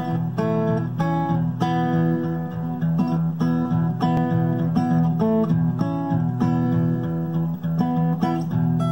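Acoustic guitar playing an instrumental: single plucked melody notes over low bass notes that keep ringing beneath them.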